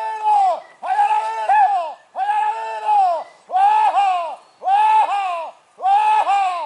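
A high-pitched cry repeated over and over, about seven times, roughly once a second, each cry arching in pitch with a wobble in the middle.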